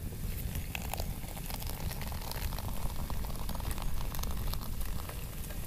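Hot water run from the new brass ball-valve spigot on a campfire water heater, heard as scattered small crackles and splashes over a steady low wind rumble on the microphone.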